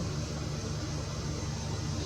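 Steady background hiss with a low, even hum; nothing starts or stops.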